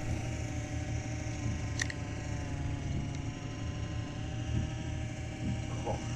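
A boat's engine running steadily with an even hum, and a single short click a little under two seconds in.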